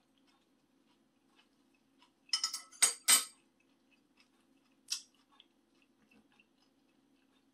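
Tableware clinking: a quick cluster of sharp clinks about two to three seconds in, and a single clink near five seconds, over a faint steady hum.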